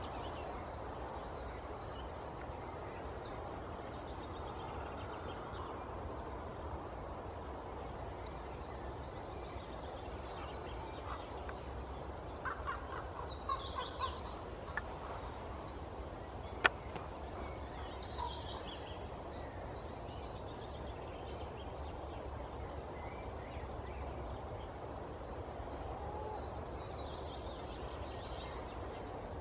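Common raven giving a run of rapid, low knocking rattle calls about halfway through. Small songbirds sing high repeated trills on and off, over a steady low rumble, and there is a single sharp click a little later.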